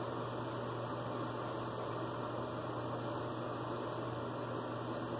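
Steady low hum and hiss of room tone.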